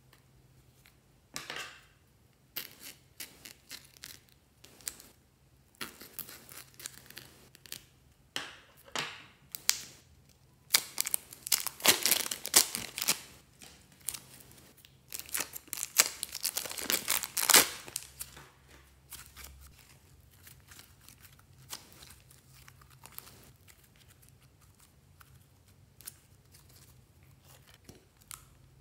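Plastic piping bags of slime crinkling and rustling as hands handle and squeeze them, pressing the slime out into a glass dish. The loudest crinkling comes in two long stretches near the middle, with softer, scattered rustles before and after.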